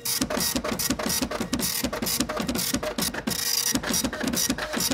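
Subscribe-animation sound effect: a rapid run of sharp clicks and short pops, about five a second, with a brief lull a little past the middle.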